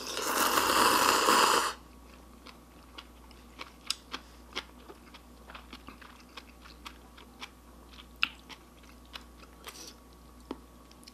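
A person slurps a mouthful of cheese ramen noodles, one loud slurp of under two seconds, then chews them with soft, wet mouth clicks.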